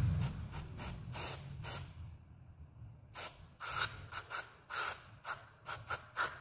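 Aerosol carburetor cleaner sprayed in a series of short hissing spurts through a straw nozzle onto a car's throttle body, with a pause around two seconds in before a quicker run of spurts. The spray is dissolving blackened deposits from the inside of the dirty throttle body.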